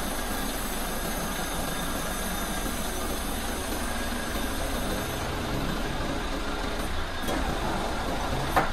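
Hyundai truck's diesel engine running steadily, driving the hydraulics of its truck-mounted crane as it hoists a mini excavator. There is a sharp click or knock near the end.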